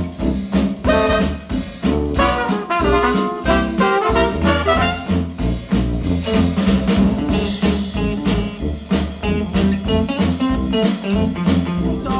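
Upbeat swing jazz with trumpet and other brass over a steady beat, played back through Wharfedale Diamond 12.2 bookshelf speakers.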